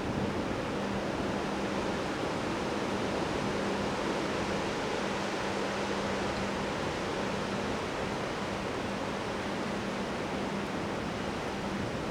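Strong windstorm winds blowing in a steady rush. A steady low hum runs underneath and drops out briefly a few times.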